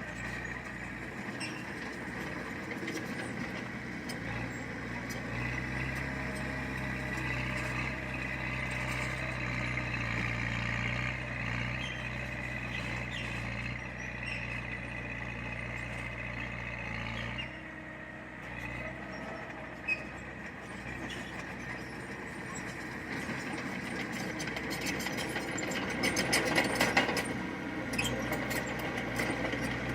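Heavy diesel construction machinery running with a steady low engine drone, which eases off partway through. Near the end comes a louder stretch of clattering and knocking.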